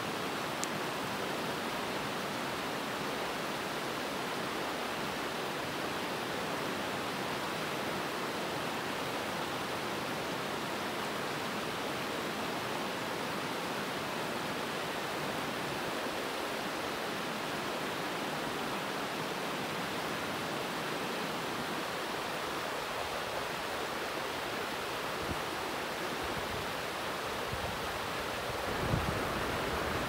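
Shallow, rocky river rushing over rapids: a steady, even rush of water. A few low thumps near the end.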